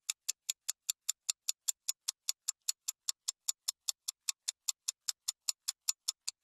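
Ticking sound effect like a fast clock: sharp, high-pitched ticks, evenly spaced at about five a second.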